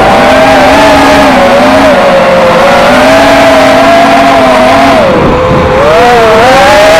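Brushless motors and propellers of a QAV-R 220 FPV racing quadcopter whining loudly in flight. The pitch wavers up and down with the throttle, drops sharply about five seconds in as the throttle is cut, then climbs back.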